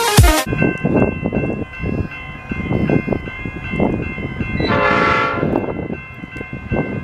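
Diesel freight locomotive approaching with a low rumble, sounding one short horn blast about five seconds in.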